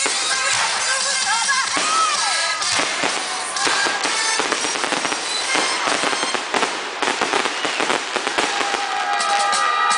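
Fireworks popping and crackling in rapid succession, densest through the middle, over music playing.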